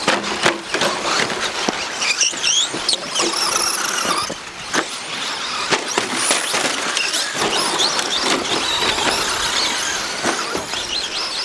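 Several electric 2WD short course RC trucks racing: overlapping high-pitched motor whines rising and falling as they speed up and slow down, with scattered sharp knocks.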